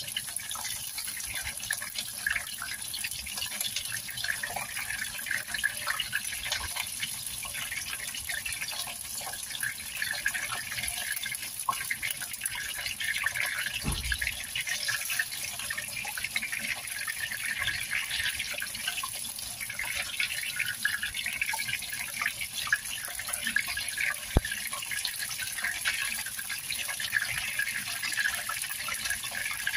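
Flour-battered tofu deep-frying in hot oil in a wok: a steady sizzle with fine crackling as the pieces are scooped out with a wire strainer. A dull knock sounds about 14 seconds in and a sharp click near 24 seconds.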